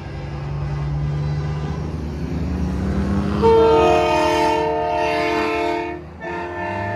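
Big-rig diesel engine running and rising in pitch, then about halfway through a loud multi-note air horn chord blasts and holds for a couple of seconds. It breaks off briefly near the end and sounds again.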